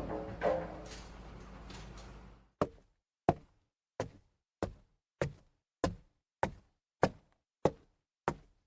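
A noisy sound fades out, then from about two and a half seconds in comes a steady series of sharp single knocks, about one and a half a second, each dying away quickly with silence between.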